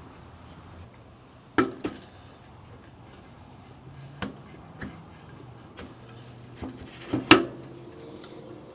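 Bicycle wheel hub being slid and knocked onto a rear axle: a series of separate hard knocks and clunks, a double knock about a second and a half in and the loudest knocks near the end.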